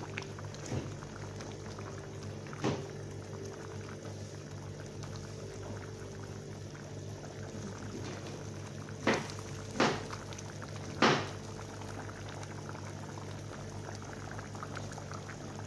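Meat curry simmering and bubbling in a pot while a wooden spoon stirs it, under a steady low hum. There are four sharp knocks of the spoon against the pot: one a few seconds in, and three close together later on.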